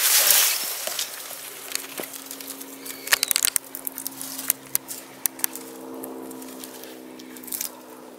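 White plastic tying tape crinkling and snapping as it is pulled and wrapped around a young birch's branches. Short bursts of sharp crackles come a few seconds in and again a little later, after a loud rustle at the very start. A low steady hum runs underneath from about a second in.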